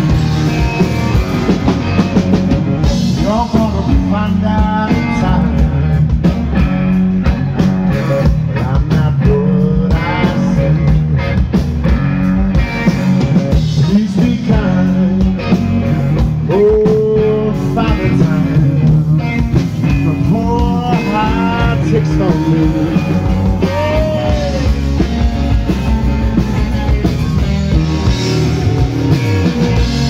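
Live rock band playing: electric guitar carries a lead line with bending notes over a drum kit and bass guitar.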